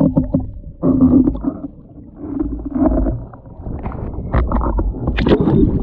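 Underwater sound of a diver in rough surf: churning water rumbling and surging, with gurgling bubbles from his breathing.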